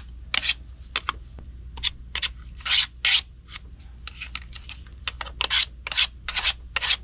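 Diamond sharpening stone scraped by hand in short strokes along the rusty blades of a pair of metal snips, two or three strokes a second with a brief pause about a second in.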